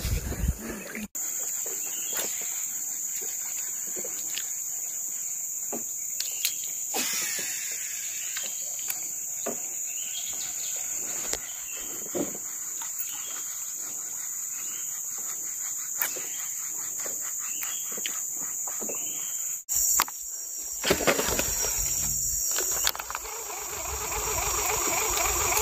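Steady high-pitched drone of tropical forest insects with scattered faint clicks; near the end a louder low rushing noise joins it.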